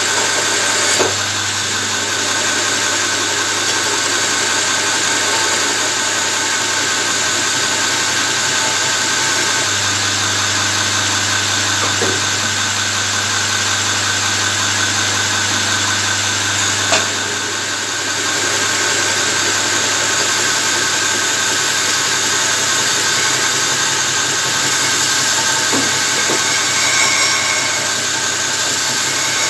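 Electric belt grinder running steadily with a motor hum, its abrasive belt grinding forged steel, a spear head, with a few faint brief ticks.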